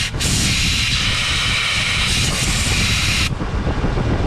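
Compressed air blasting steadily from an air gun, a loud hiss that cuts off about three seconds in, over a low rumble.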